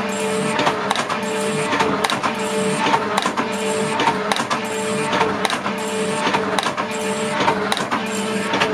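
Alba 4S / Elliott 18S metal shaping machine running, its ram stroking back and forth a little more than once a second as the tool planes a solid steel bar, with a hum that comes and goes with each stroke and a rhythmic clatter. The cutting tool chatters and the vice vibrates, because the vice and its block are held down by too few tee nuts.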